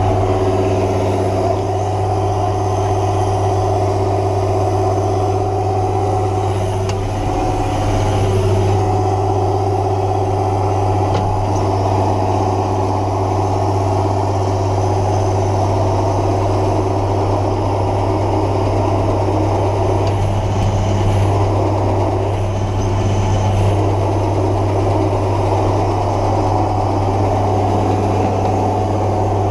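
Massey Ferguson 6270 tractor's diesel engine running steadily: a constant low drone with a couple of brief slight shifts in pitch.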